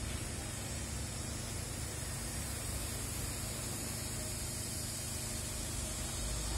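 Steady hiss with a low, flickering rumble: wind buffeting the microphone outdoors, over faint street background.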